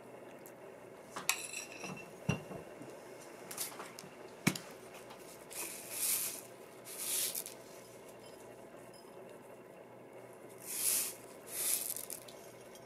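A metal spoon clinking against a cut-glass bowl a few times, one clink ringing briefly, followed by several short soft hissing swishes as sesame seeds are sprinkled by hand over the food.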